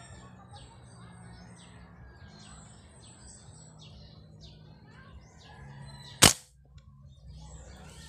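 Small birds chirping in the trees with short repeated calls, then, about six seconds in, a single sharp shot from a scoped hunting gun fired at a bird in the branches.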